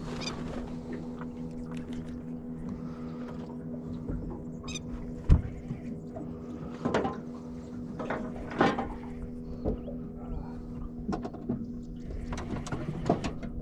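A steady low hum with a few even tones, under scattered knocks and clicks; the loudest is a sharp thump about five seconds in.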